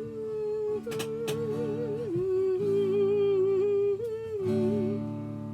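A woman humming a slow melody in long, wavering notes over strummed acoustic guitar chords.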